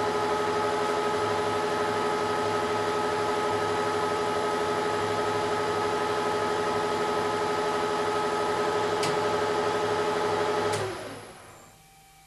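1972 Weiler Matador SV lathe running at 600 rpm, a steady whine from its drive, while taking a light finishing facing cut on a steel disc. A faint click comes near the end; then the lathe is switched off and the sound dies away within about a second, leaving a faint hum.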